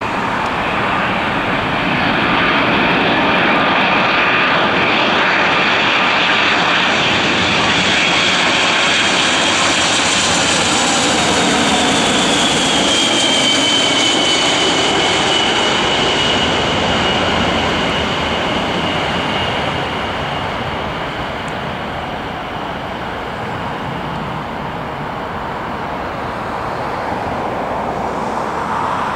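Boeing 747-400's four Rolls-Royce RB211 turbofans on landing approach, passing low overhead: a loud jet rush with a high whine that slides down in pitch as the jet goes by. It grows quieter in the second half as the jet moves away toward touchdown.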